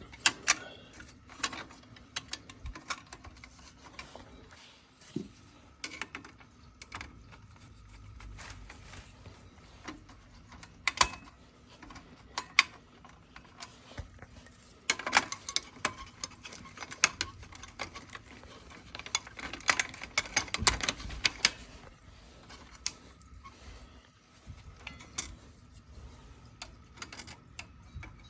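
Irregular clicks, taps and light metallic clatter of hand tools and small parts being handled, coming in clusters, over a faint steady hum.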